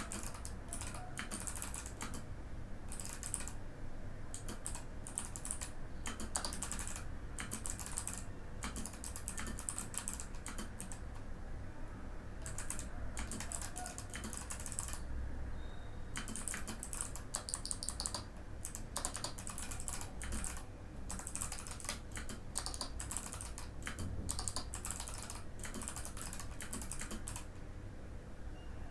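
Continuous typing on a Mikit M65 mechanical keyboard with clicky Kailh Box White switches: rapid runs of crisp key clicks broken by brief pauses.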